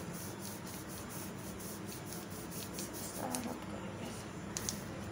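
A hand rubbing a cold wax strip pressed onto the skin of the forearm: repeated soft, scratchy strokes over a steady background hiss, with a couple of small clicks near the end.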